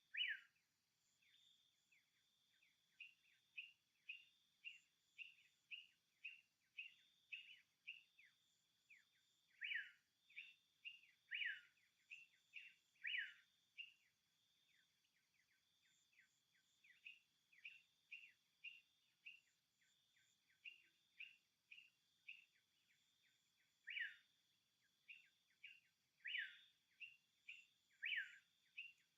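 Faint bird chirping: short, quickly falling chirps repeated about twice a second, some louder than others, over a steady high insect drone.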